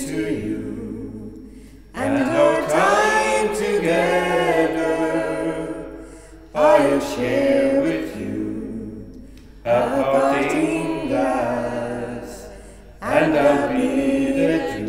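Unaccompanied voices singing a slow song, with new phrases starting about every three to four seconds and each one fading away.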